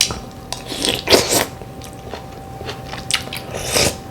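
Close-miked eating sounds: bites and chewing in a few short, wet bursts, a cluster about a second in and two more near the end.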